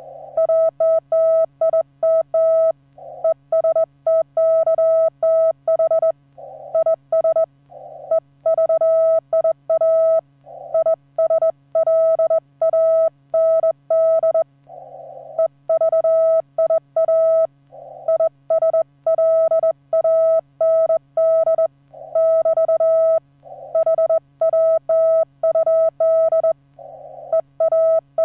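Morse code (CW) from an amateur radio transceiver: a single steady beep keyed on and off in dots and dashes, with a few brief softer, rougher tone stretches in the gaps and a faint steady hum underneath.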